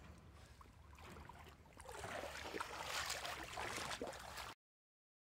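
Water splashing and sloshing, growing louder about two seconds in, then cutting off suddenly.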